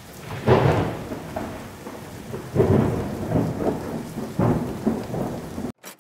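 Thunderstorm: steady rain with three rolling rumbles of thunder about two seconds apart, cutting off abruptly shortly before the end.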